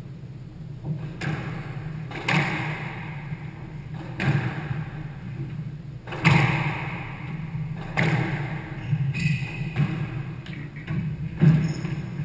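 Squash rally: the ball is struck by rackets and hits the court walls about every one to two seconds, each hit echoing in the court.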